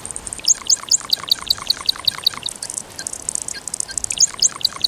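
Male Jackson's widowbird giving its gurgling courtship call: two runs of rapid, short notes, about six a second, the first starting about half a second in and the second near the end.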